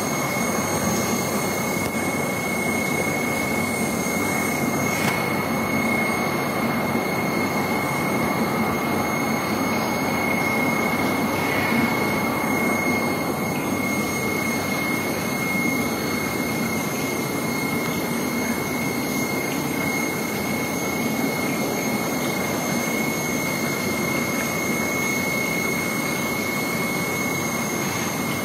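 Steady rushing hum of aquarium air pumps and filters running, with bubbling air in the tanks and a constant high whine over it.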